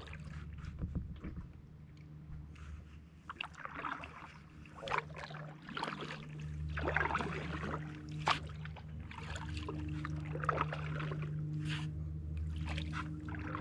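Kayak paddling: the paddle blades dipping and splashing in the water about once a second, over a steady low rumble.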